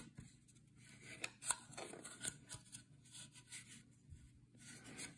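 Faint scattered clicks and rubbing of plastic as the opened cordless-phone base station's housing and circuit board are handled during reassembly.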